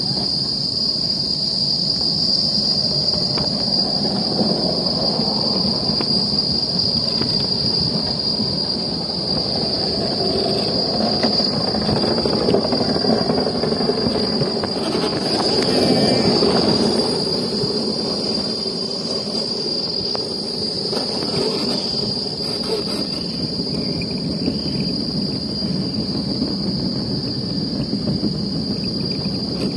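Luge cart's wheels rolling down the track with a continuous rumble that swells for a few seconds in the middle, over a steady high-pitched insect drone.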